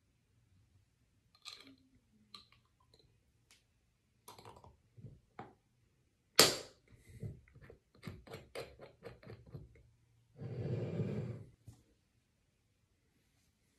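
Small objects being handled on a hard surface: scattered light clicks, one sharp knock about six seconds in, then a quick run of clicks and a short rushing noise near eleven seconds.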